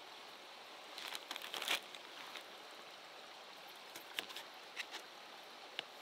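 Kitchen knife cutting a lime on a plastic cutting board: a quick cluster of small clicks and taps about a second in, then a few single ticks, over a faint steady hiss.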